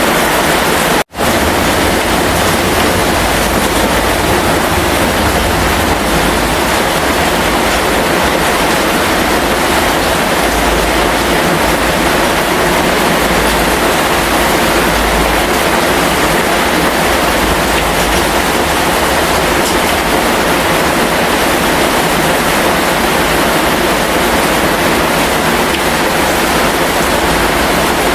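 Heavy rain falling as a loud, steady, dense hiss that cuts out for an instant about a second in.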